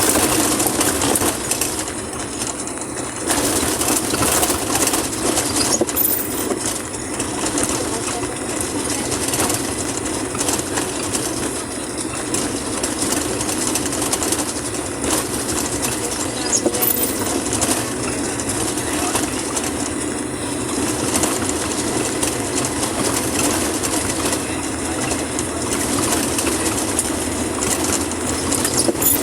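A vehicle driving on a wet road in heavy rain: its engine runs under a steady, dense rush of road and rain noise.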